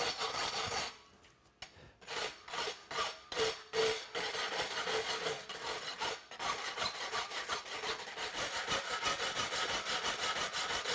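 Farrier's rasp scraping back and forth across the edges of a forged horseshoe held in a vise, to clean it up. The strokes pause briefly about a second in, then come back one by one, and run faster and steadier from about six seconds.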